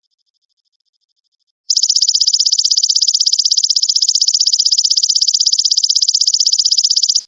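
Belalang emas (golden grasshopper) calling: a loud, fast, evenly pulsed high buzzing trill that starts about two seconds in and runs for about five and a half seconds. Before the trill there is a faint thin steady tone.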